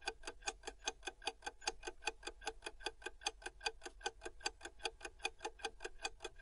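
Clock-ticking sound effect counting down a quiz timer: rapid, evenly spaced ticks.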